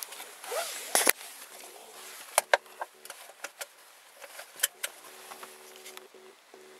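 Scattered sharp clicks and knocks of handling inside a car's cabin, with a faint steady hum coming and going.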